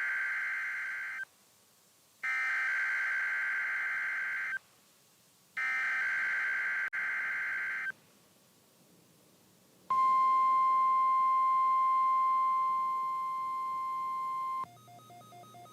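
NOAA Weather Radio weekly test signals: three bursts of harsh digital SAME header data tones, each about two seconds long and a second apart. About ten seconds in comes the steady 1050 Hz warning alarm tone for about five seconds, dropping in level before it stops. Near the end a weather radio's own pulsed alert beeping starts.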